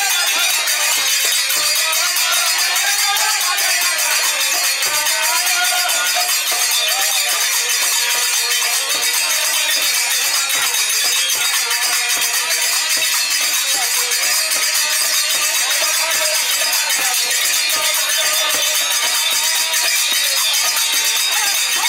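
Live Hindu devotional kirtan music: harmoniums and a clarinet playing a melody over a barrel drum, with small hand cymbals clashing in a steady, dense rhythm.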